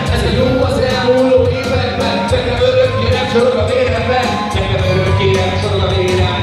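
Live hip-hop track with a steady beat played over PA speakers, with a male vocal rapped into a microphone over it.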